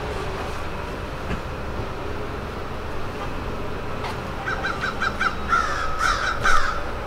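A bird calling: a quick run of five short notes about four and a half seconds in, then a few longer calls, over a steady low background rumble.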